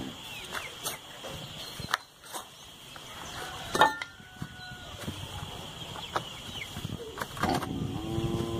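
Loose dry earth being scooped by hand into a plastic bucket, with scrapes and knocks, and a sharp knock about four seconds in as the wooden template goes into the bucket. A cow moos near the end.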